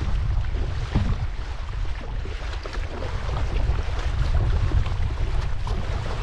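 Heavy wind rumble on the microphone over the splash and rush of river water around a racing paddle boat being paddled downriver, with scattered small splashes throughout.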